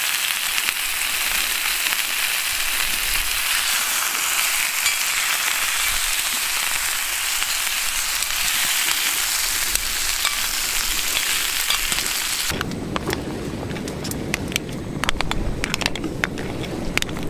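Seafood and tofu sizzling steadily in a hot iron pan. About three-quarters of the way through, water is poured in: the sizzle drops away abruptly and a lower bubbling with scattered pops takes over.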